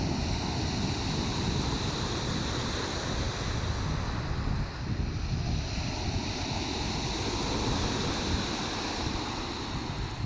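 Sea surf washing steadily ashore, with wind buffeting the microphone as an uneven low rumble.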